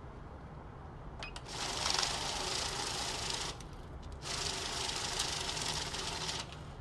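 Safescan banknote counter running a stack of bills through its feed, in two runs of about two seconds each with a short pause between, each starting and stopping suddenly.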